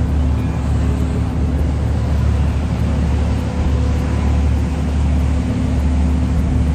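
Steady low drone of a car ferry's engines under way, with a rushing wind noise over the microphone on the open deck.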